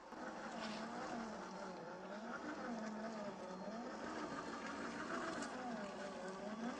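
Electric motor and geared drivetrain of a 1/10-scale Traxxas TRX-4 Defender RC crawler whining. The pitch rises and falls repeatedly as the throttle is worked while it climbs over rocks.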